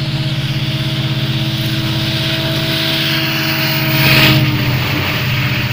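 Diesel locomotive hauling a freight train, its engine running with a steady, pulsing drone as it approaches at speed. About four seconds in, the sound surges loudest as the locomotive passes directly below, with a rush of exhaust and cooling-fan noise. The engine note then fades into the rumble of the wagons behind.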